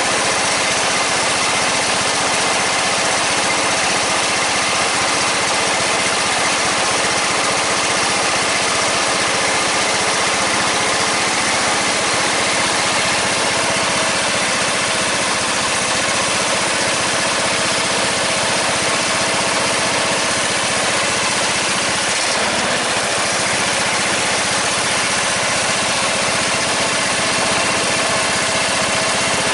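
14.5 hp Briggs & Stratton engine on a small riding tractor running steadily with its air cleaner (breather) fitted. It runs smoothly on a newly replaced fuel line, which is the sign that the no-start fault is cured.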